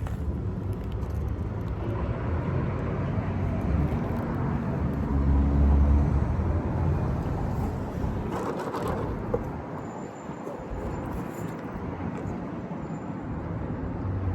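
Low, steady rumble of a motor vehicle, like car or traffic noise, that swells for a moment about five seconds in.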